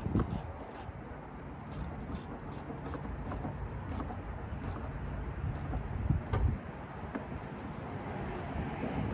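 Scattered light clicks and clinks of hand tools as the battery cable is reconnected, over a steady low rumble.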